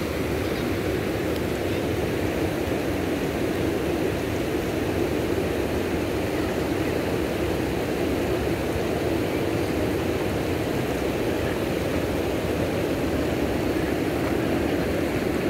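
Steady rushing of fast-flowing floodwater, an even roar without breaks.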